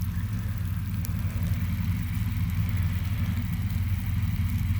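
A large farm machine's engine running steadily, a low even drone.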